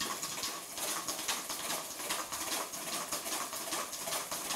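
Wire whisk beating a thickening egg-yolk cream in a stainless-steel bowl, a quick rhythmic swish and scrape of about three strokes a second. The cream is being beaten cold until it turns thick.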